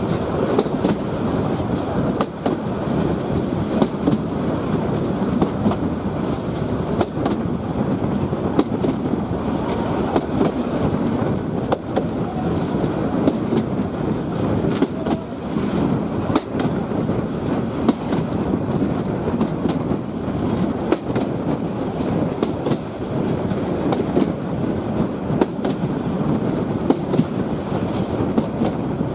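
Train running on the rails: a steady rumble with frequent sharp clicks and rattles from the wheels and track.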